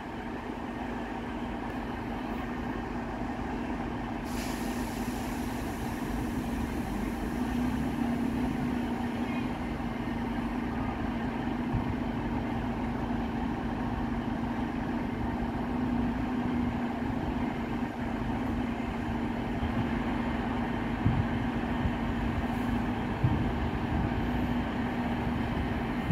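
Class 150 Sprinter diesel multiple unit's underfloor Cummins diesel engines running steadily at the platform, with a hiss of air about four seconds in. The engine sound grows slowly louder as the unit starts to move off.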